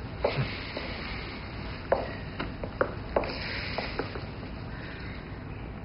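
Quiet footsteps and small taps on a hard floor, a dozen or so irregular clicks over low room noise.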